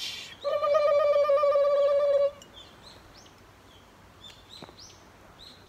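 One long, steady whistle-like tone of nearly two seconds, given as a station attendant's 'all clear' signal; after it, faint birds chirping.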